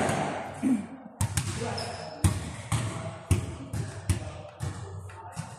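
A basketball dribbled on a gym floor, about two bounces a second, each bounce echoing in the hall.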